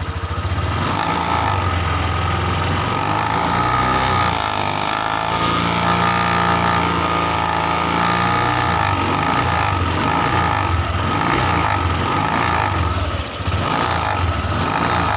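Honda Vario 150 eSP scooter's single-cylinder engine revved up with the rear wheel spinning free, climbing in pitch about four to six seconds in and held at high revs. A krotok-tok rattle from the rear comes in at high RPM, which the mechanic traces to a worn radiator filler cover rattling from vibration.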